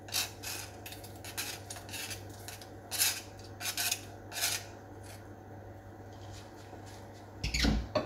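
Chopsticks scraping and tapping sliced shiitake mushrooms off a plastic cutting board into a pot of stock: a string of short scrapes, then a louder clatter near the end.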